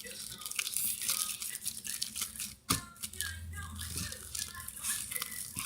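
Hands squishing a plastic bag of soapy water and foam: a dense wet crackling of plastic and small popping bubbles, with one sharp click about two and a half seconds in.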